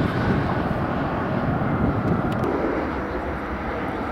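Jet airliner engines on the runway: a loud, steady rushing noise that eases off a little near the end.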